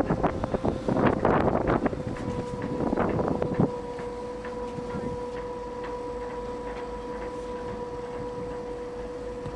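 Wind buffeting the microphone in gusts for about the first four seconds, then a steady hum from the ship's engine as it moves along.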